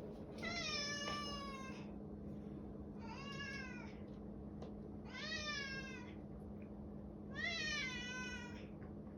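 A house cat meowing over and over: four drawn-out meows of about a second each, every one rising and then falling in pitch. The cat is asking to be let out into the garage.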